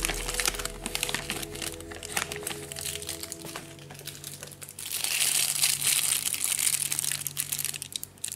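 Clear plastic bag crinkling in the hands in quick irregular crackles, with a louder, denser rustle from about five to seven seconds in.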